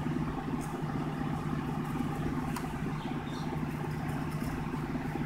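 Steady low hum of a running motor or engine, with a few faint light ticks over it.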